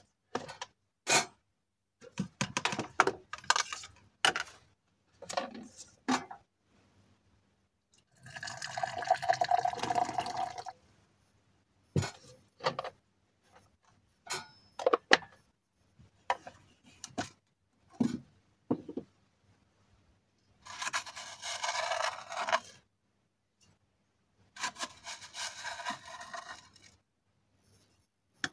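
Coffee being made with a vacuum flask: the flask cap is unscrewed, and the cap, cups and spoon give scattered clicks and clinks. Liquid is poured from the flask into a cup in three spells of about two seconds each, roughly 8, 21 and 25 seconds in.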